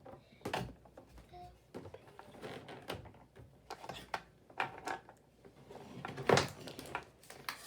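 Plastic Play-Doh playset pieces being handled: a run of scattered clicks and knocks as parts are pressed and set down, with one louder knock about six seconds in.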